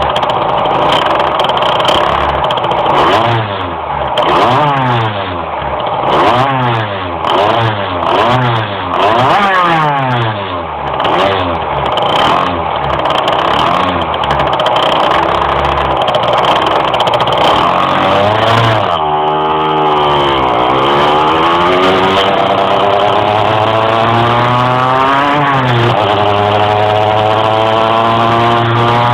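Tuned two-stroke moped engine being ridden, its pitch rising and falling about once a second for the first half, then dropping and climbing slowly in revs, falling again and rising once more near the end. The engine struggles to climb in revs under way, as the owner describes it.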